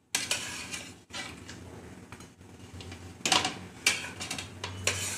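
Fried fish pieces being scraped off a plate with a metal spatula into a wok of boiling curry gravy. The gravy gives a steady bubbling hiss, with a few sharp scrapes and clinks of the spatula on the plate and wok in the second half.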